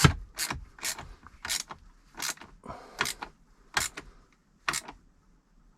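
Ratchet spanner tightening a nut on a leisure battery terminal: about eight short ratcheting strokes, the first the loudest, spacing out and stopping about a second before the end.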